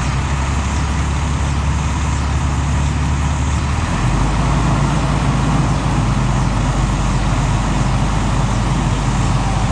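Heavy diesel engine of site machinery running loud and steady, its engine note dropping to a lower pitch about four seconds in.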